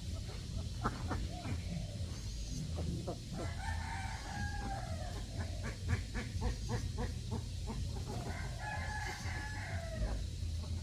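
A rooster crowing twice, each crow a long call of about a second and a half, with quick runs of short clucking or quacking calls between the crows. A steady low rumble runs underneath.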